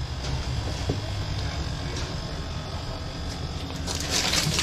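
Steady low hum, with a plastic bag rustled and crinkled by hand near the end.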